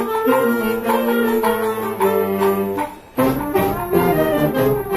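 Wind band playing: clarinets, saxophones and brass hold sustained notes, then after a short break about three seconds in the whole band comes back in fuller, with strong low notes.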